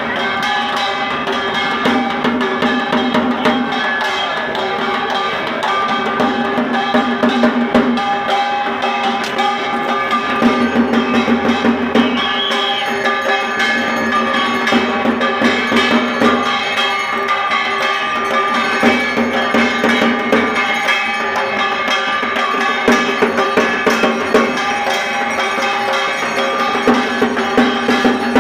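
Hanging brass temple bells rung rapidly and without pause, many ringing tones overlapping, with clattering percussion struck in quick succession underneath.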